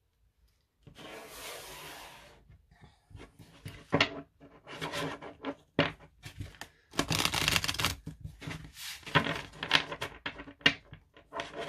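A deck of oracle cards being shuffled by hand: cards sliding and flicking against each other in irregular flurries of rustles and clicks, with a longer, denser run of rustling about seven seconds in.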